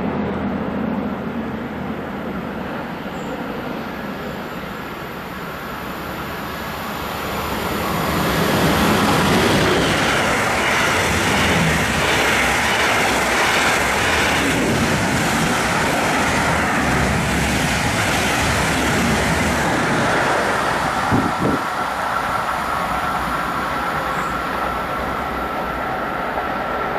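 Electric-locomotive-hauled double-deck regional train approaching and running past on the main line: a rumble and rush of wheels on rails that swells from about seven seconds in and stays loud while the coaches go by. In the last several seconds a steady high whine comes in.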